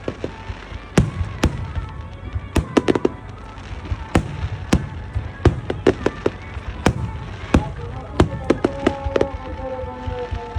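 Aerial fireworks shells bursting in quick, irregular succession: sharp bangs, about two or three a second, over a continuous low rumble.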